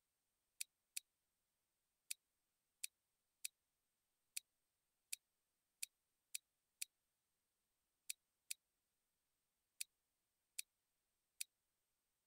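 Computer mouse button clicking: about fifteen short, sharp clicks at uneven intervals, some in quick pairs, over near silence.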